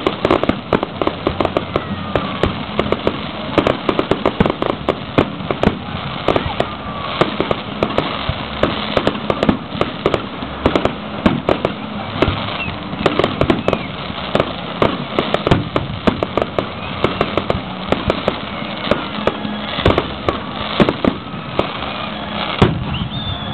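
Fireworks display: a dense, continuous run of aerial shell bursts and crackling bangs, many coming in quick succession, with a few whistles from rising shells.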